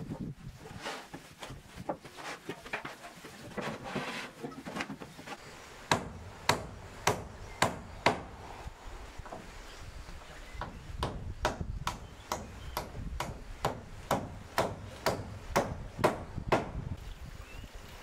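A hammer striking nails on the roof frame: two runs of sharp, even blows, about two a second, the first starting about six seconds in and the second about eleven seconds in. Softer knocks and handling come before them.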